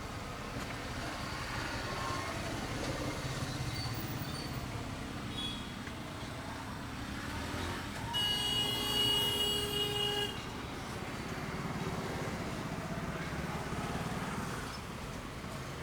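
Street traffic noise with a vehicle horn blowing one steady, held note for about two seconds near the middle.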